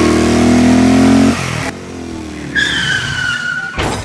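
Small motorcycle engine revving, then a high screech sliding down in pitch like a skid, ending in a single loud crash about four seconds in.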